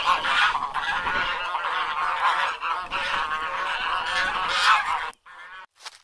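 Goose honking, one loud honk after another, cutting off about five seconds in.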